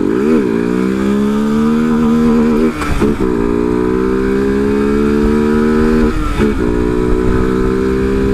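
Honda CG 150 Fan's single-cylinder engine and exhaust running loud under acceleration, its pitch climbing through the gears, with two short drops at gear changes about three and six seconds in.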